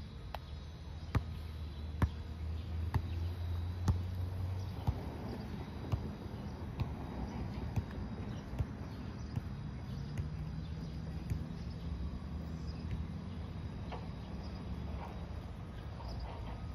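Outdoor summer ambience of insects chirring steadily, with sharp knocks about once a second that fade out after the first half, and a low rumble that swells and fades twice.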